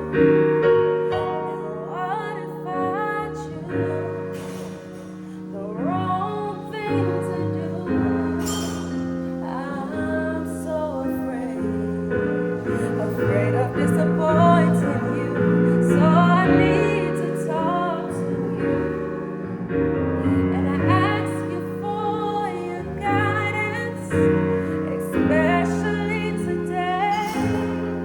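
Singing with piano or keyboard accompaniment: a solo voice carries a wavering melody over sustained chords.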